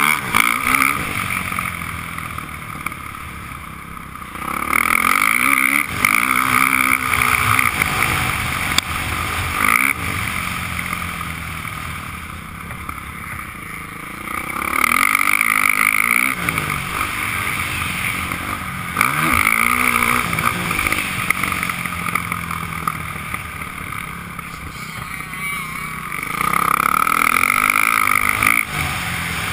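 Motocross dirt bike engine heard from the rider's helmet camera, revving up and backing off again and again through the lap. It surges loudest about five, fifteen and twenty-seven seconds in and falls away between, as the rider gets on and off the throttle through corners and straights.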